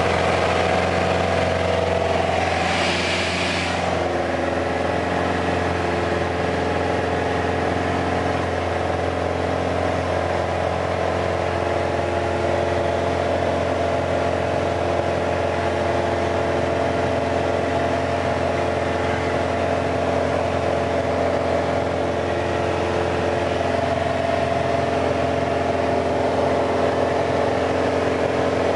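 Steady cabin drone of a Piper Arrow in cruise: its four-cylinder Lycoming engine and propeller running at a constant setting, heard from inside the cockpit. A brief hiss comes about three seconds in.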